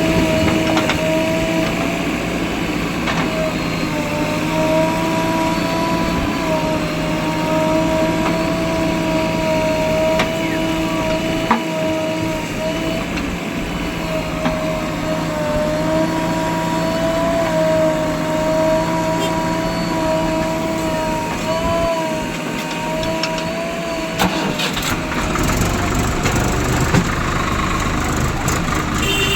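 Heavy diesel machinery engine running steadily under a whine that holds one pitch, wavering slightly. About 25 seconds in, the whine stops and the engine sound turns deeper.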